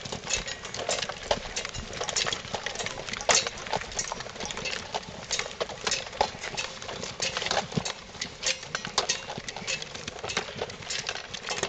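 Many footsteps of a group walking on a sandy path, an irregular patter of steps.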